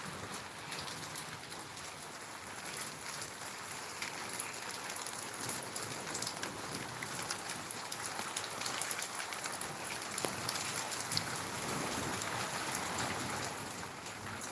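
Steady heavy monsoon rain falling and pattering on surfaces, a dense hiss with many small drop ticks, growing a little louder in the second half.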